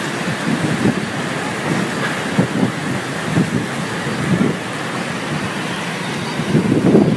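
Strong storm wind and rain, a steady loud hiss with irregular low gusts buffeting the microphone.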